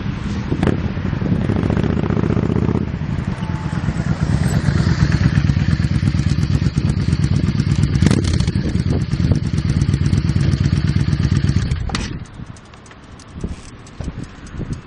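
Yamaha Drag Star 650 V-twin running through a Roncar aftermarket exhaust. Its note changes and grows louder about three seconds in, with a sharp crack about eight seconds in. About twelve seconds in it drops off sharply to a quieter, uneven running.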